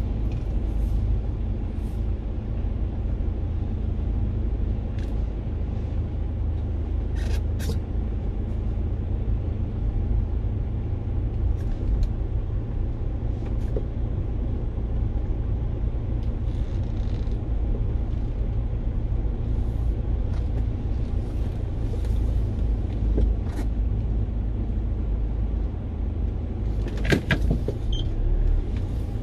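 Underground car park ambience: a steady low rumble with scattered short clicks and knocks, a few of them bunched together near the end.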